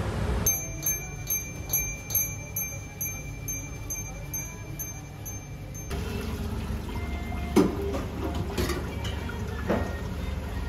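A run of evenly spaced bright chime tones, about two and a half a second over a steady high tone, that starts half a second in and stops abruptly near six seconds. After that comes a steady low room hum with a few scattered knocks, the loudest about two seconds after the chimes stop.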